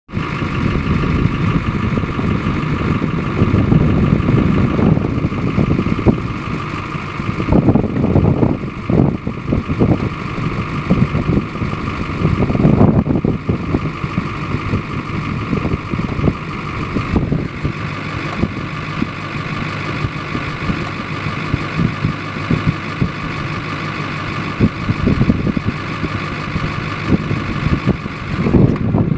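Engine running steadily, with intermittent bursts of rapid ticking, likened to a typewriter, that come and go several times.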